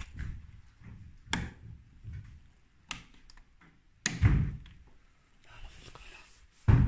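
Sharp clicks of toggle light switches being flicked on a metal switch plate, then two heavy thuds, the louder one about four seconds in and another near the end.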